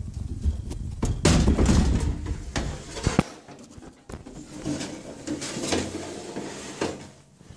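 DEC BA23 chassis's sheet-metal case sliding along steel rack rails: a scraping run of about two seconds that ends in a sharp click, followed by lighter knocks and rubbing.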